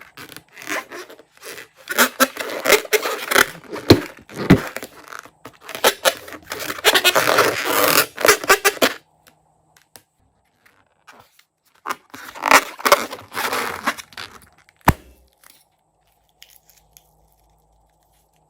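Slime being worked: sticky crackling and tearing squishes in two long stretches, then a single sharp click near the end.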